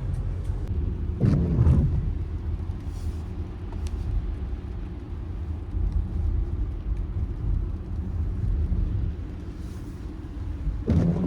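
Steady road and engine rumble inside a 2024 Mercedes-Benz GLE driving in rain, with a louder wiper sweep about a second in and again near the end. The wiper squeaks, a recurring fault that repeated workshop repairs have not cured.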